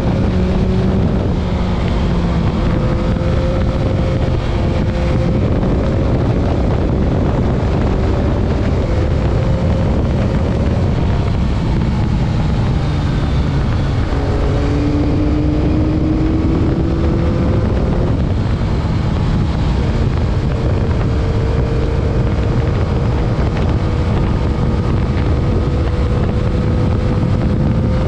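Stock 2021 Yamaha MT-09's 890 cc inline-three engine under way, its pitch climbing slowly and dropping back several times with throttle and gear changes. Heavy wind noise rumbles on the chest-mounted microphone.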